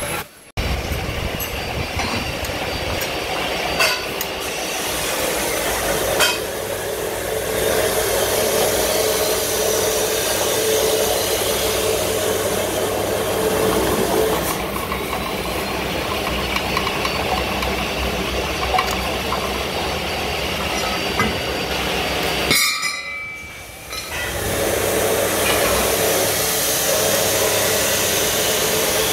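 Pillar drill press running with its bit boring into a thick iron bar: a steady mechanical hum and grinding with a few sharp clicks. The sound drops out briefly just after the start and again for about a second later on.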